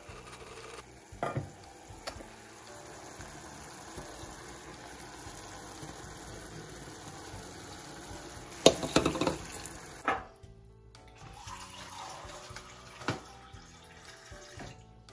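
Vegetables simmering in a covered stainless steel pot, with an even hiss and bubbling of steam. About nine seconds in, the metal lid is lifted off with a clatter, followed by a few lighter knocks of metal on metal.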